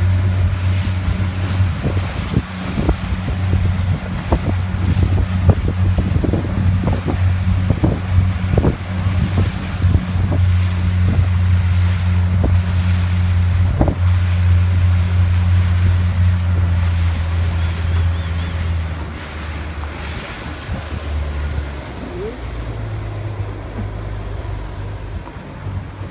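A small open boat's engine running steadily under way, with wind buffeting the microphone and short thumps in the first half; about three-quarters of the way through the engine is throttled back and its hum drops lower and quieter as the boat slows near the moored boats.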